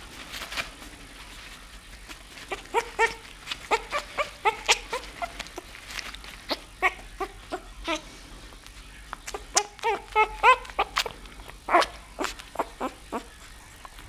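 Nine-day-old bull terrier puppy giving a long string of short, high squeaking cries starting about two and a half seconds in, some bending up and down in pitch.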